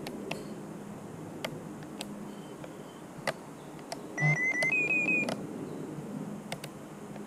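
About four seconds in, a quick run of short electronic beeps: a few on one pitch, then a few more a step higher. Around it is a faint steady background hum with a few scattered light clicks.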